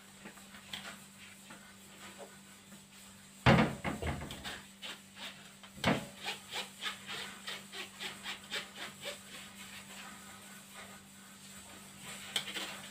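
Kitchenware being handled: a sharp knock about three and a half seconds in and another near six seconds, then a quick run of light taps, about three a second, for a few seconds, with more clicks near the end. A faint steady low hum runs underneath.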